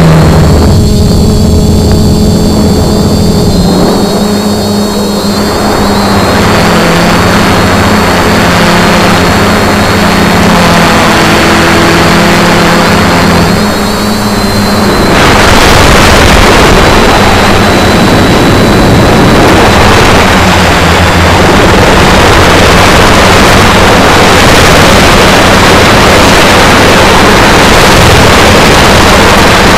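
F450 quadcopter's electric motors and propellers buzzing loud and close, their pitch stepping up and down as the throttle changes. From about halfway a heavy rushing wind noise on the onboard camera's microphone covers the motor tones as the drone flies fast and low.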